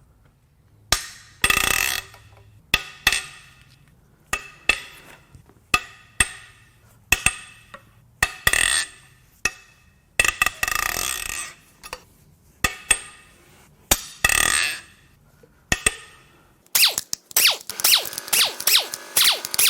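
Sharp metal clanks and several short whirring bursts of a power wrench loosening the cylinder head bolts on a 4.6L DOHC V8. A plucked-string music track comes in near the end.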